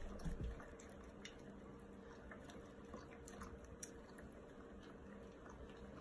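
Faint, scattered small clicks and soft wet sounds of a German Shepherd nosing and licking at a small bowl, with a brief low thump about half a second in.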